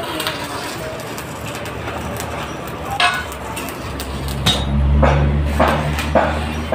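Workshop noise with a few light metallic knocks. A low, steady machine hum comes in about four seconds in and grows louder.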